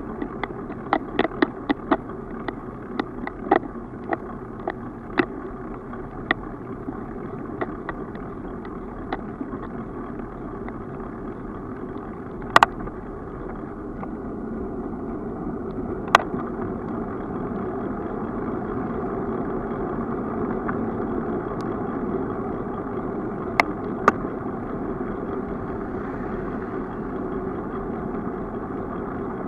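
Steady rolling and wind noise of a bicycle riding on an asphalt road, heard through a bike-mounted camera. Sharp clicks and knocks come thick and irregular through the first nine seconds, then a few scattered ones later; they are typical of the bike or camera mount jolting over bumps.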